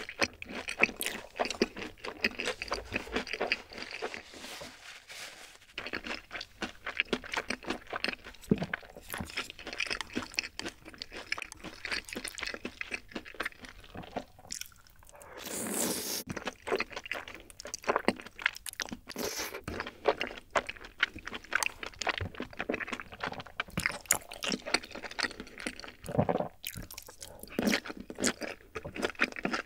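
Close-miked wet chewing and mouth smacks of rosé tteokbokki, soft rice cakes and wide glass noodles in a creamy sauce, with slurps as noodles are sucked in. There is a longer slurp about fifteen seconds in.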